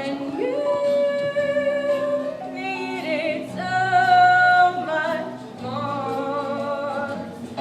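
A song from a stage musical: a voice singing long held notes, some with vibrato.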